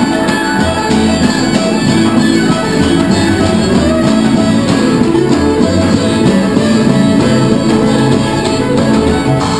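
An acoustic old-time string band playing live: a fiddle over plucked strings with a steady bass line underneath.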